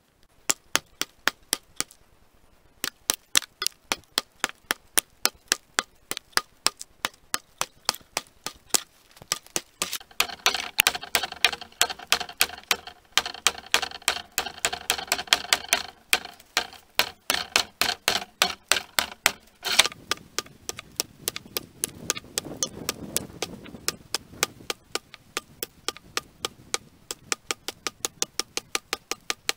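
A steady, rapid ticking of sharp clicks, about four a second, running on without a break.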